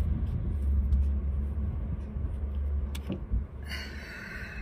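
Low rumbling with a couple of soft knocks as a person shifts about in a car seat, reaching into the back seat, then a brief rustle near the end. The rumble drops off about three and a half seconds in.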